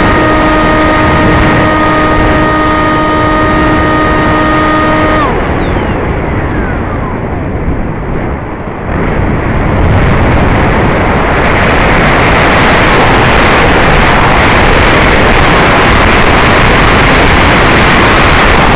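Skysurfer RC glider's electric motor whining at a steady pitch, cut off about five seconds in so its whine slides down and away. After a brief lull, wind rushing past the airframe builds into a loud, steady hiss as the glider dives.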